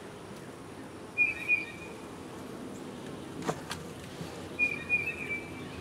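Honeybees buzzing in a steady low hum over the opened hive box. A bird gives two short high whistles, and a couple of light clicks come from the wooden frames being shifted about halfway through.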